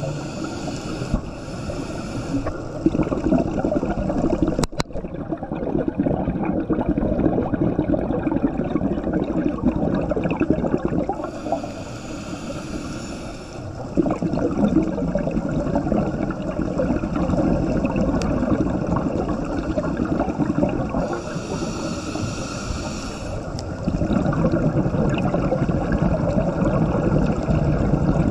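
Water gurgling and churning without a break, with a brief hissing burst about every ten seconds and one sharp click about five seconds in.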